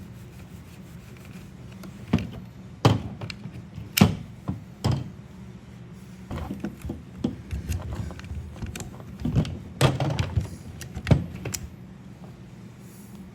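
Scattered knocks, clicks and clatter of chainsaw parts being handled and worked on, the sharpest about four seconds in, over a steady low hum.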